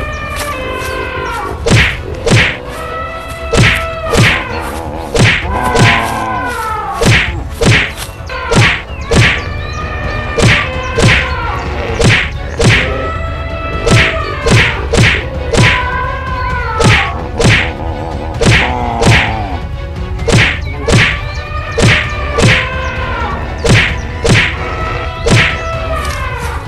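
Fight sound effects for an animated brawl: a run of loud whacks and thuds, about one or two a second, with pitched falling calls between the hits.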